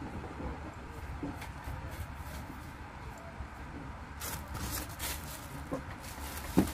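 Packaging handled during an unboxing: rustling and crinkling that thickens from about four seconds in, with a sharp knock near the end, over a steady low hum.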